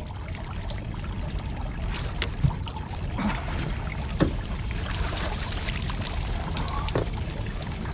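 Water splashing and lapping around a small boat as a lively hooked mulloway (jewfish) is brought in, over a steady low rumble of water and wind, with a few short knocks against the boat.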